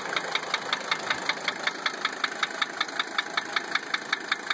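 1980 Mercedes-Benz 300 SD's five-cylinder turbodiesel idling with a sharp, regular tap, about six or seven a second. The tap carries on unchanged with the number 5 injector line cracked open, which the owner takes to rule out injector nailing as its cause.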